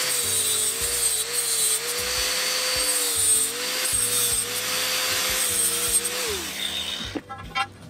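Electric angle grinder with a flap disc grinding the end of a steel pipe into a notch: a harsh grinding hiss over a steady motor whine. About six seconds in the whine drops in pitch and the grinding stops.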